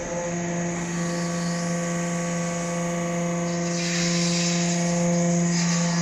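Hydraulic metal-chip briquetting press running, its pump and motor giving a steady humming whine. A hissing rush joins in about four seconds in.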